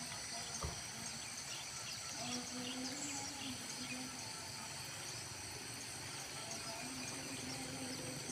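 Steady high-pitched insect chorus from the surrounding tropical vegetation, over a faint outdoor background. Short low hums come and go beneath it, with a single click about half a second in.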